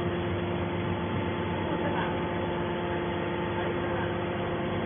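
Steady hum of a hydraulic metal baler's electric motor and pump running, with several fixed tones and no change in pitch.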